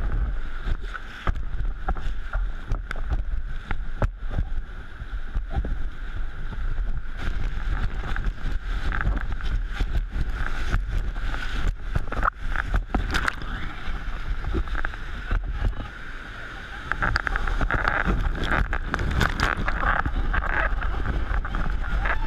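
Whitewater rapids rushing around an inflatable raft as the crew paddles through, with water and wind buffeting the raft-mounted camera's microphone. Splashes and knocks run throughout, and the rush grows louder about seventeen seconds in as the raft drives into the big waves.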